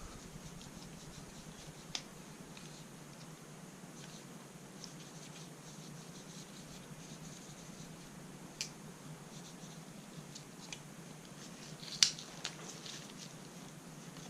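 Faint scratching and rubbing of hands working on small rifle parts during cleaning, with a few sharp clicks, the loudest about twelve seconds in.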